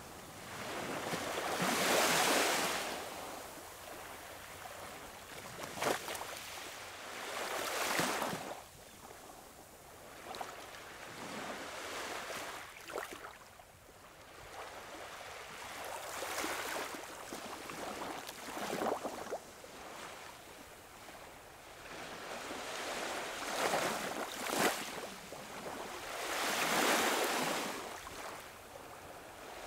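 Small waves washing up on a beach, the surf swelling and fading every few seconds.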